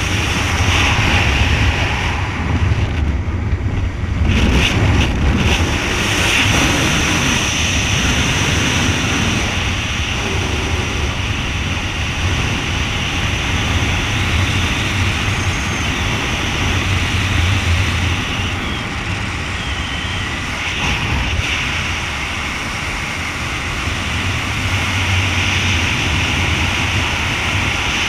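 Wind noise on a camera microphone during a parachute descent under canopy: a steady, loud low rumble with hiss, swelling and easing slightly.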